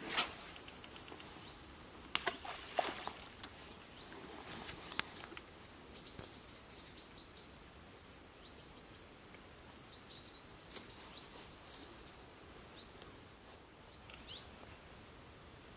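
Outdoor ambience with birds giving scattered short, high chirps, a few of them rising, over a faint steady hiss. A few sharp clicks and knocks from handling come in the first five seconds, the loudest about two seconds in.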